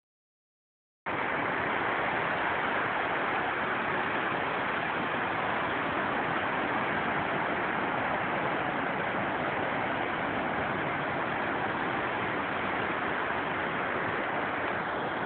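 Steady roar of ocean surf breaking over rocks below a sea cliff, starting about a second in.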